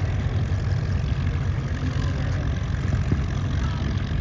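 P-51 Mustang's V-12 piston engine running steadily with a low, even rumble.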